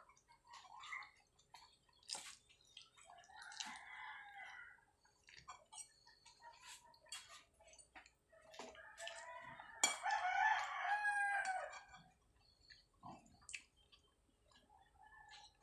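A rooster crows, loudly, for about two seconds beginning roughly nine seconds in, after a shorter, fainter call about three seconds in. Scattered soft clicks and chewing from eating by hand run underneath.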